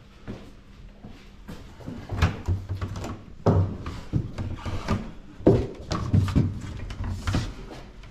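Irregular knocks and thumps of heavy equipment being handled and moved, in a small room.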